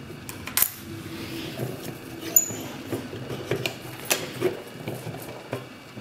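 Small metal lever lock (Sargent & Greenleaf mailbox lock) being handled and turned over by hand: irregular sharp metallic clicks and light knocks, the strongest about half a second in, with soft rustle between.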